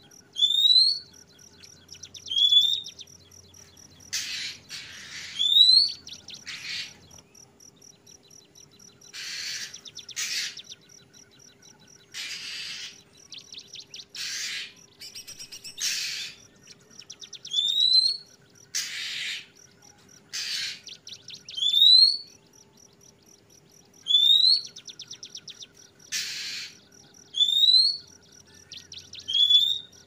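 Juvenile oriental magpie-robin (kacer trotol) calling. Short rising whistled notes, often in pairs, come every couple of seconds and alternate with harsh raspy bursts, over a faint steady low hum.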